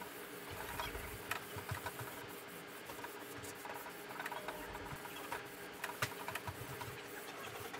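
Faint, irregular soft rubbing of a folded cloth wiping hard wax oil across a walnut wood-veneer top, over a low steady hum.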